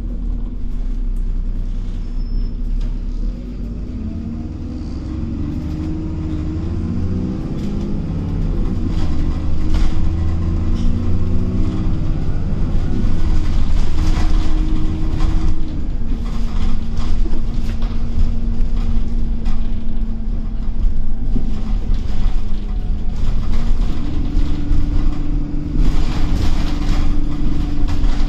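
Alexander Dennis Trident Enviro400 double-decker bus heard from inside while driving: its diesel engine and gearbox running, the engine note rising and falling, getting louder about a third of the way in, with rattling from the bodywork.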